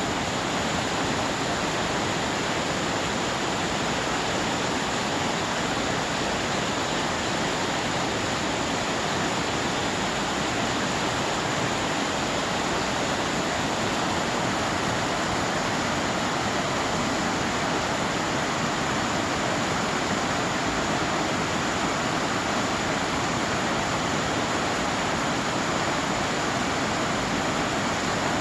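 Rushing water of a stream, a steady, unbroken hiss and rumble that neither rises nor falls.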